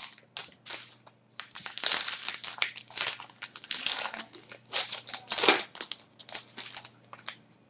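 Trading-card pack wrapper being crinkled and torn open by hand: a dense, irregular run of crackling rustles that thins out near the end.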